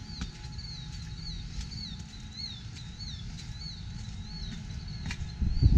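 A bird calling over and over with short swooping chirps, about three a second, over a low rumble; a loud low thump comes near the end.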